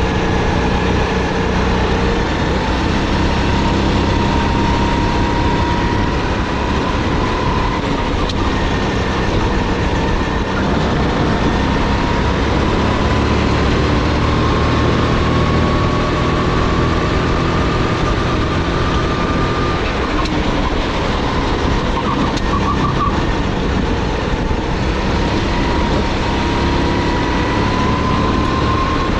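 Onboard sound of a SODI GT5R rental kart's 270 cc, 9 hp four-stroke engine running hard at racing speed. Its pitch climbs slowly along the straight, drops sharply about two-thirds of the way through as the kart slows for a bend, then climbs again near the end.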